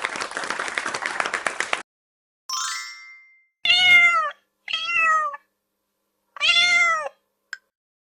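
A domestic cat meowing three times, each meow about half a second long with a slightly falling pitch. Before it come a brief rattling drum-roll-like stinger and a chime ding, and a steady ticking starts near the end.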